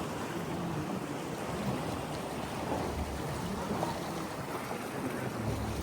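Ocean surf washing steadily, with wind rumbling on the microphone that grows stronger near the end.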